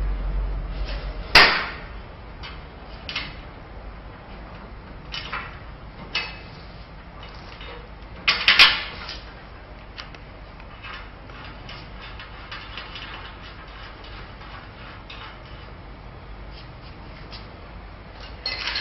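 Scattered sharp metal knocks and clanks from the parts and bolts of a steel loom frame being handled and fitted: a loud knock about a second in, a few lighter ones, and a double clank around eight seconds in, with faint ticks after.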